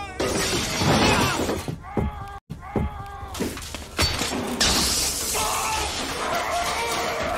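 Film-style fight effects: glass shattering and crashing in the first two seconds, short pained cries, then a fresh crash about four seconds in as a man is thrown through a glass window, followed by a hiss.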